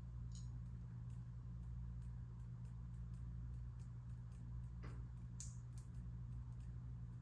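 Faint, irregular scratchy ticks of a paintbrush laying oil paint onto paper, several a second, over a steady low room hum.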